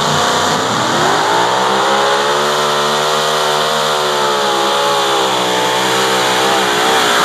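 V8 engine of a super modified 2WD pulling truck at full throttle while it drags the weight-transfer sled. The revs climb in the first second or so, hold high and steady, then waver up and down near the end as it labours under the load.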